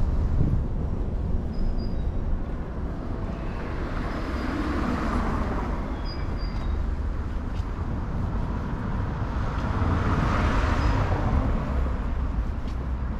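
City street traffic: a steady low rumble with cars passing, two of them swelling up and fading away about 5 and 11 seconds in.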